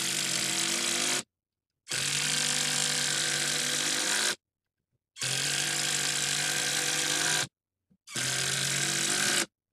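Brushed 12-volt Hyper Tough impact driver hammering long decking screws into wood. It runs in four stretches, each cut off by sudden silence, and is slow-going.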